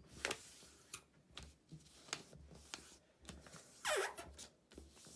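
A sheet of paper being folded and creased by hand: a series of short rustles and crinkles, with a brief falling squeak about four seconds in.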